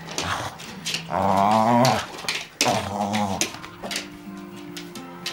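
Dog growling and whining in play, its voice wavering, loudest about a second in and again around three seconds, with sharp scuffling clicks between.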